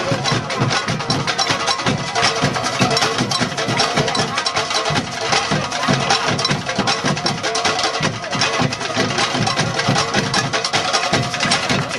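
Percussive music: a dense, steady run of quick hits.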